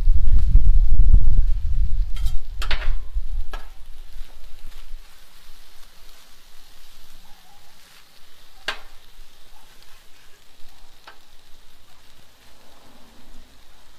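Steak, peppers and onions sizzling on a Blackstone flat-top steel griddle, with a metal spatula clacking and scraping against the plate a handful of times. A loud low rumble fills the first two seconds.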